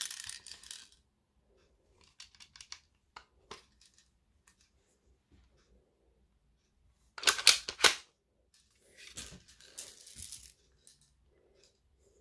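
Plastic clicks and rattles of a clear-plastic pump-action airsoft Mossberg 500 shotgun being handled and reloaded, with a quick run of loud, sharp clacks about seven seconds in as it is worked.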